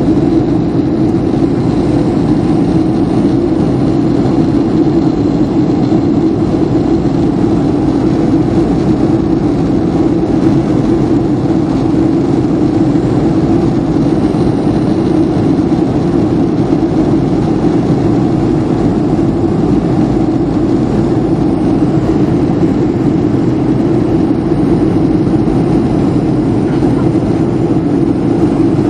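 Steady cabin noise inside a Boeing 737-500 in flight: its CFM56-3 turbofan engines and the airflow over the fuselage, heard from a window seat over the wing as an unchanging low hum with hiss.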